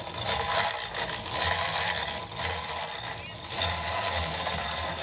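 Hand-cranked metal grain mill grinding fresh curd (cuajada): a steady grinding and rattling of the burrs and gears as the crank turns.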